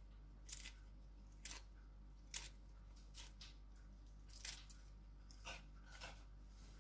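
Crisp iceberg lettuce leaves being torn apart by hand: faint, short crackles about once a second.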